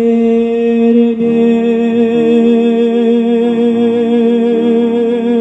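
A singer holds one long note with vibrato on the word "ветер", over a keyboard accompaniment whose chords change about a second in.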